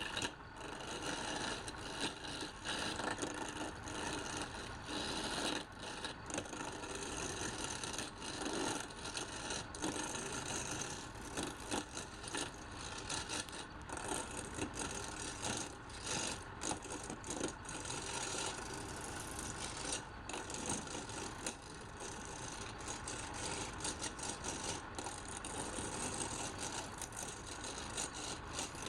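Wood lathe running, with a turning tool scraping and cutting the spinning wood in a steady, rasping stream of noise that starts abruptly.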